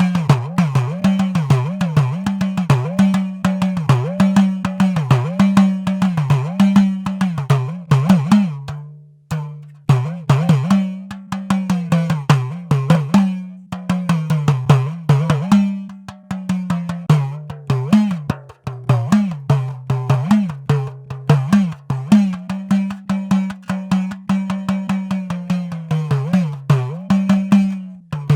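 Idakka, the hourglass-shaped tension drum of Kerala, struck in a quick, steady rhythm, its pitch bending up and down from stroke to stroke as the lacing is squeezed and released. A brief pause about nine seconds in.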